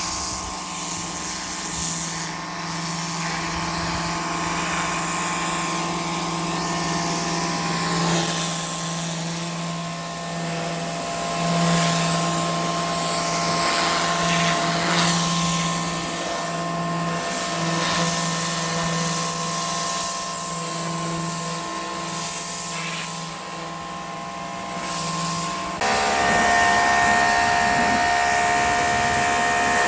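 Greenworks Pro 2300 PSI electric pressure washer running: a steady motor-and-pump whine over the hiss of the water spray, which swells and fades. About 26 s in the sound changes abruptly to a steadier, higher set of tones.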